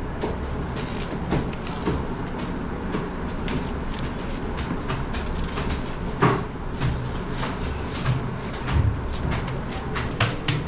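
Steady low rumble with scattered short clicks and knocks, one louder knock about six seconds in and quicker clicking near the end.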